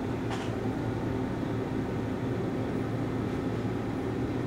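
Steady, even fan hum from electronic equipment cooling or room ventilation, with a brief light tick about a third of a second in.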